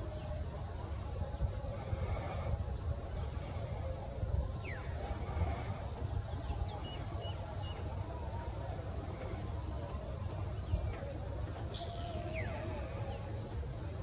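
Outdoor ambience: a steady low rumble with a thin, high-pitched hum running above it, and scattered short chirps from small birds.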